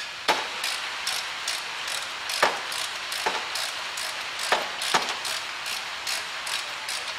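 Hand socket ratchet clicking in a steady run, about two to three clicks a second, with a few louder knocks, as a brake caliper guide pin is wound in.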